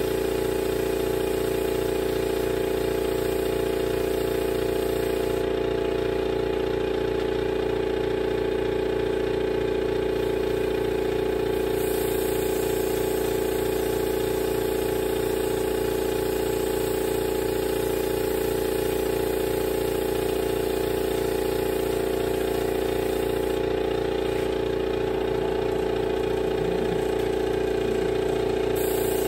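Air compressor running steadily with a constant mechanical hum, feeding a spray gun whose air hiss comes and goes as the surfacer is sprayed, stopping for several seconds twice.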